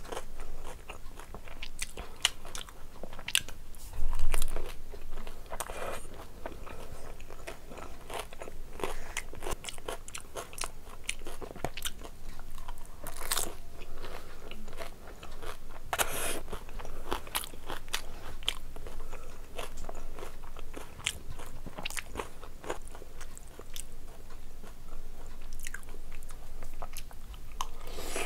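A person crunching and chewing mouthfuls of crisp puris (dahi puri and pani puri), with many small crackles and wet chewing. There is one louder thump about four seconds in.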